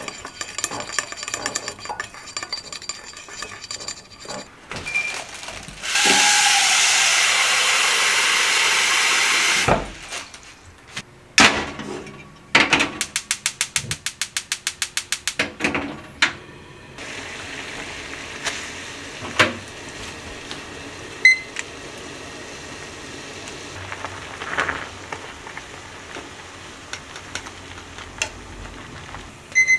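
Chopsticks stirring sauce in a ceramic bowl, then a loud hiss of water running into a pot for several seconds. A gas stove's igniter clicks rapidly, about seven times a second for three seconds, before the burner catches, and a steady low hiss of the flame and boiling water follows, with a few knocks and a short electronic beep partway through.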